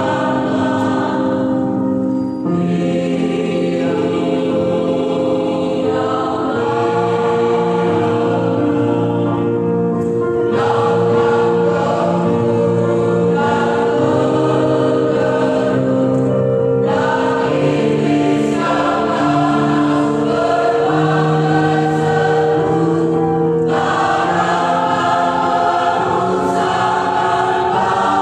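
Church choir singing in parts: long held chords, the phrases changing every few seconds.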